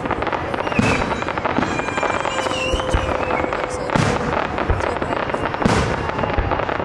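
Fireworks display: aerial shells bursting with a loud bang about once a second, over a dense, continuous crackle.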